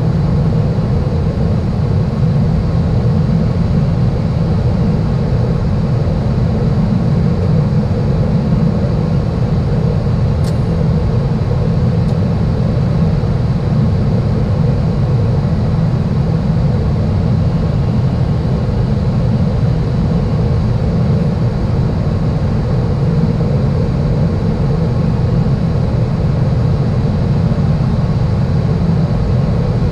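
Steady low rumble inside an Airbus A380's flight deck on final approach: airflow and engine noise at an even level throughout, with only a faint tick about ten seconds in.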